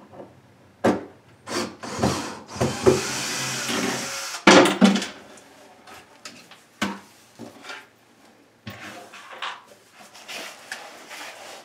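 Cordless drill-driver backing out the screws that hold the countertop to a base cabinet, running steadily for about two seconds, among knocks and clatter of the tool and hands against the wooden cabinet. The loudest knocks come a little after halfway, and a lower spell of drill noise with clicks follows near the end.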